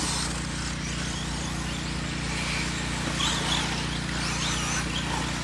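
Electric 4x4 short course RC trucks running on a dirt track, their motors giving wavering high whines that rise and fall with throttle, more of them after about three seconds, over a steady low hum.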